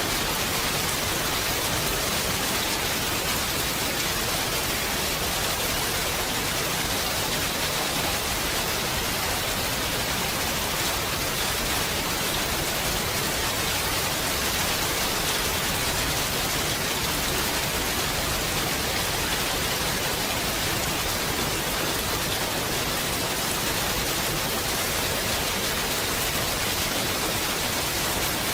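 Steady rain falling, an even hiss that holds the same level throughout, with no single drops or gusts standing out.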